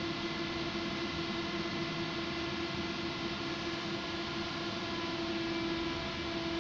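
Steady electrical hum inside a Vario LF2 plus tram: several constant tones over an even hiss, with no rise or fall in pitch. This is the on-board electrical and ventilation equipment running while the tram stands still.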